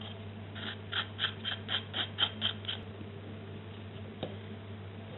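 A small tool scraping the edge of a set plaster mould: a run of about nine short squeaky scrapes, roughly four a second, then a faint click near the end.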